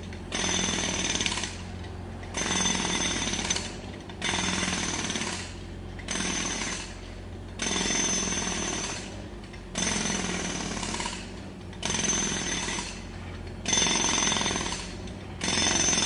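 Jackhammer breaking up pavement at road works, firing in short runs of about a second each with brief pauses between, roughly every two seconds, over a steady low hum.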